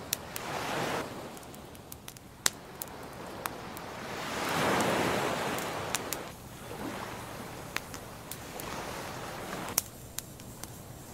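Rushing noise that swells and fades in slow surges, like surf or wind, loudest about halfway through, with scattered sharp clicks over it.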